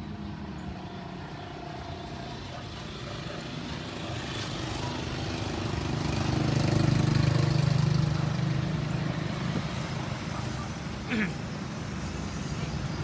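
A motor vehicle engine running over steady traffic-like noise, growing louder to a peak about seven seconds in and then fading, with a short sound that falls in pitch about eleven seconds in.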